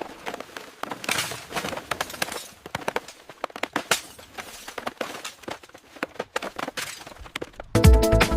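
Irregular knocks, clicks and a few scraping noises, like hands-on work with tools and materials. Near the end, loud drum-and-bass music with a heavy beat cuts in abruptly.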